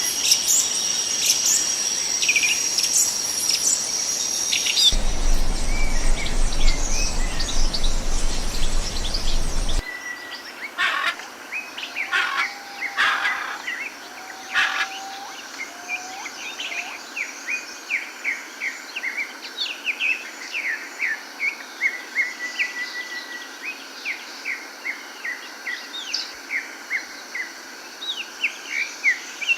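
Wild songbirds singing and calling: high whistled phrases at first, then many quick, repeated short chirps. A low rumble runs under the birds between about five and ten seconds in, and the sound changes abruptly twice, as between separate recordings.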